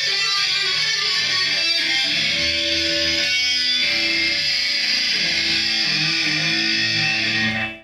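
Electric guitar playing, with some held notes, stopping abruptly near the end.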